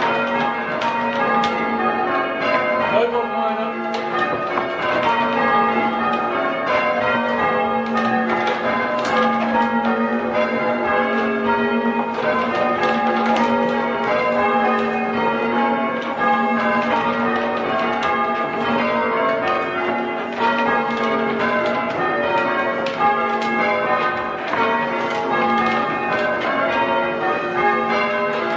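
A ring of six church bells, tuned in A-flat with a 9-3-12 cwt tenor, being rung full-circle in change ringing. The strikes follow one another in a steady, even stream, with the bells' hum lingering beneath.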